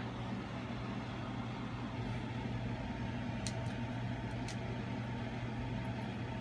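A steady low hum, with two faint sharp clicks about a second apart in the middle.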